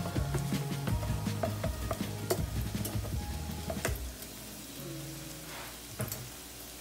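Shrimp and imitation crab meat sizzling and crackling as they are tipped into a hot pan of sautéing bell peppers and onions. Background music plays over it and drops away after about four seconds.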